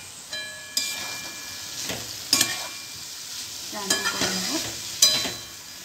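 A metal spatula stirs and scrapes chopped banana stem and potatoes frying in a kadai, over a steady sizzle. The spatula knocks against the pan three times, each knock leaving a short metallic ring.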